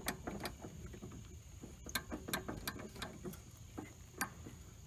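Irregular clicks and knocks of the rear deck locking pin on a Cub Cadet LTX 1050 riding mower being pulled and worked by hand; the pin is stuck and does not come free. The clicks bunch together about two seconds in, with one more near the end.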